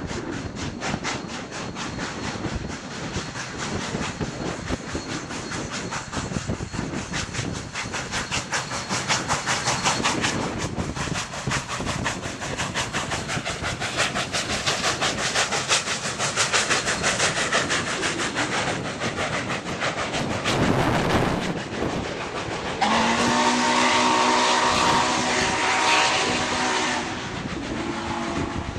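Union Pacific 844, a FEF-3 steam locomotive, passing at speed with rapid, even exhaust chuffs over the clatter of the train. About 23 seconds in its chime steam whistle sounds one long blast, then a short toot near the end.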